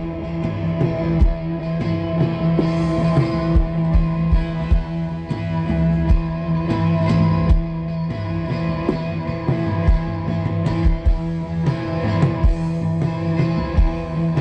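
Live rock band with electric guitar playing through a PA, a droning chord held throughout with irregular drum hits over it.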